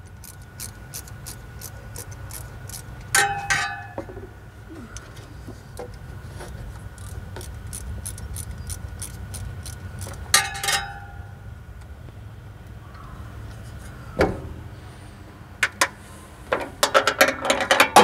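Ratchet clicking in runs of quick, even ticks as the 13 mm thermostat housing bolts on a Jeep 4.0 inline-six are backed out, with sharp metallic clinks of the tools about three seconds in and again about ten seconds in. A busier run of clicks and clanks comes near the end.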